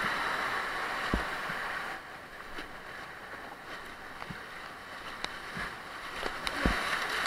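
Rushing white water of a river rapid around an inflatable raft, with paddle splashes and a few short dull knocks. The rush is loudest at the start, drops about two seconds in, and swells again near the end.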